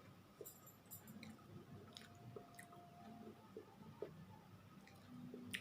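A person chewing food, faint, with a few small wet clicks of the mouth.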